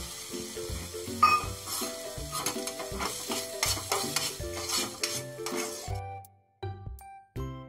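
Chopped onions and tomatoes sizzling in ghee in a pan while a spatula stirs them, knocking sharply against the pan about a second in. The sizzling stops about six seconds in, leaving background music with a steady beat.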